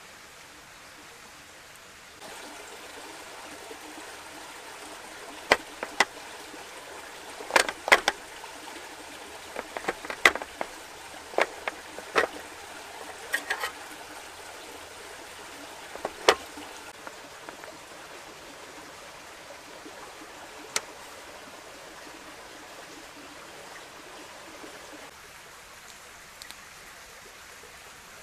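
Wood fire crackling in a small box-type camp stove: a steady hiss with irregular sharp pops, clustered through the middle, the loudest about eight seconds in.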